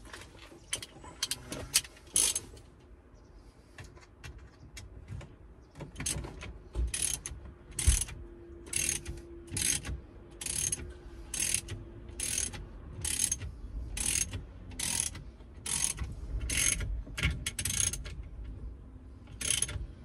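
Socket ratchet on an extension clicking as it turns a bolt in a VW Transporter T5 steering column. A few scattered clicks come first, then a steady run of ratchet strokes a little under a second apart from about six seconds in until near the end.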